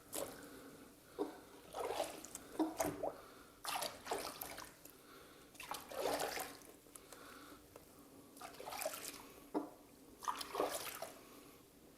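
Bath water splashing and dripping as a hen is washed by hand in a tub, in irregular splashes every second or so, echoing in a tiled room.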